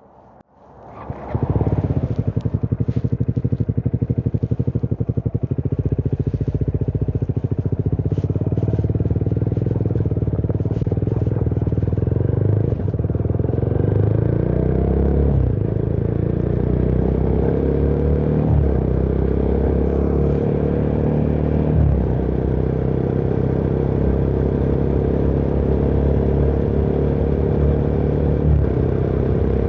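Motorcycle engine coming in sharply about a second in and running steadily, then pulling through several gears in the middle stretch, its pitch rising and dropping back at each shift.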